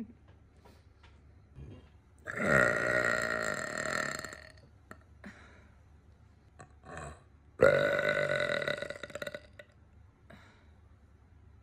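A woman's two long air burps, brought up from swallowed air, each lasting about two seconds, the second coming about five seconds after the first.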